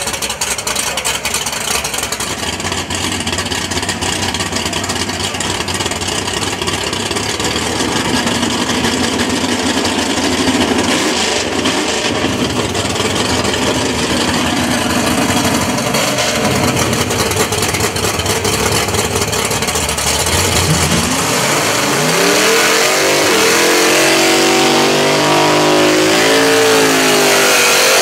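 Drag-race car engines running loud at the start line, with a dense rush of engine and tyre noise. About twenty seconds in, the Ford Thunderbird drag car's engine climbs steeply in pitch and holds at high revs as it accelerates hard.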